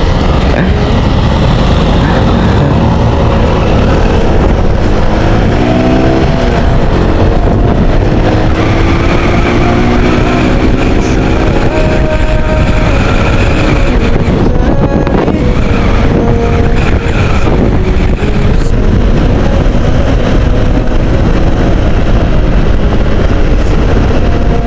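Loud, steady noise of road vehicles driving fast, with engine tones rising and falling in pitch.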